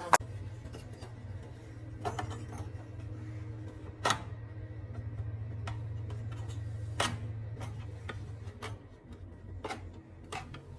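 Furnace inducer motor starting with a click and running with a steady low hum, which dies away near the end. Scattered sharp clicks and knocks sound over it.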